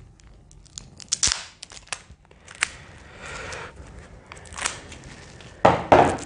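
Board-game cards and packaging being handled: crinkling and rustling, with several sharp clicks, the loudest near the end.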